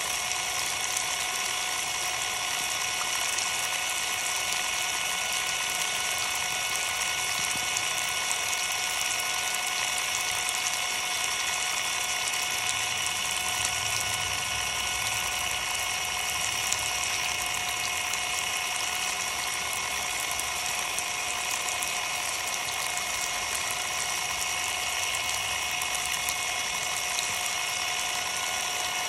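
Ryobi cordless impact driver running unloaded with a steady whine of its motor and gearing, under a constant hiss of spraying water. It keeps running while its battery's bare circuit board is being drenched.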